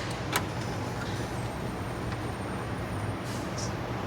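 A steady low hum with a single sharp click about a third of a second in and a couple of soft scrapes near the end, the click and scrapes coming from plastic dash parts being handled.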